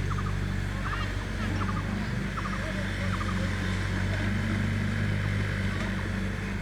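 Heavy diesel engine running steadily with a low, even hum, with short repeated chirps of small birds over it.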